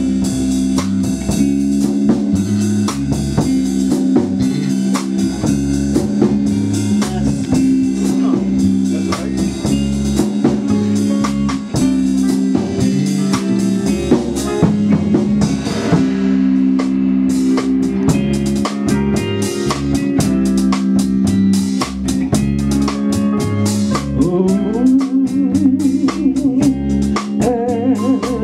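Live band playing an instrumental introduction: electric guitar over held keyboard chords, with drums keeping time.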